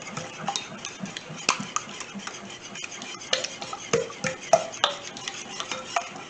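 Wire whisk beating an egg and heavy cream mixture in a ceramic mixing bowl, the wires clicking and scraping against the bowl in quick, uneven strokes.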